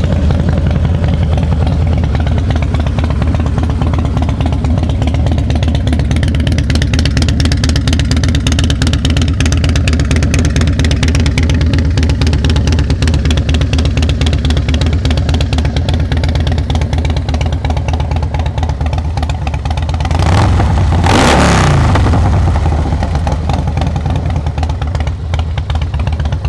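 2003 Harley-Davidson Softail Deuce's fuel-injected Screaming Eagle 95-inch V-twin idling through Vance & Hines exhaust with a deep, even pulse. It is blipped once about twenty seconds in, the revs rising and falling back to idle.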